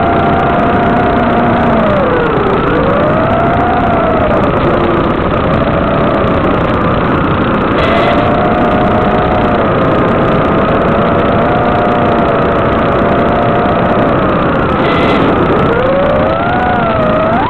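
FPV quadcopter's electric motors whining over a steady hiss. The whine dips and rises in pitch as the throttle changes, and climbs sharply near the end.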